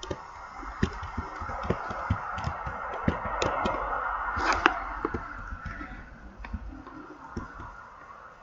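Ocean waves: a rush of water that swells and then fades away, with scattered sharp clicks.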